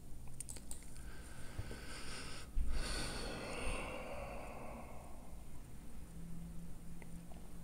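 A couple of soft computer-mouse clicks, then a long breathy noise from a person close to the microphone, with a low bump in the middle.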